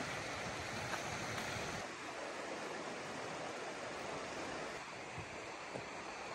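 Steady rush of flowing creek water, with a few faint ticks.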